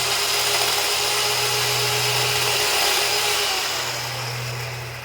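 Worx electric chainsaw running under power and cutting into a piece of pressure-treated lumber. It makes a loud, steady motor whine with the chain rasping through the wood, and the sound dies away about four seconds in.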